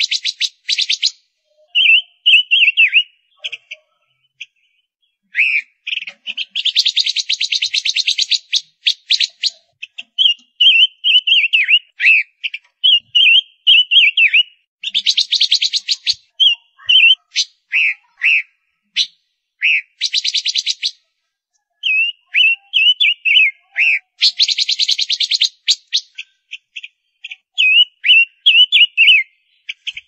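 Female silver-eared mesia calling: dry, rapid rattles lasting one to three seconds, about five times, alternating with short, high whistled notes that rise and fall in pitch.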